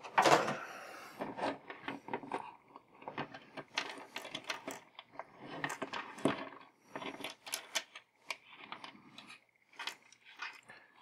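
Small plastic action figures and their accessories clicking and tapping against a tabletop as they are moved and set in place: a run of light, irregular clicks, with a louder clatter at the very start.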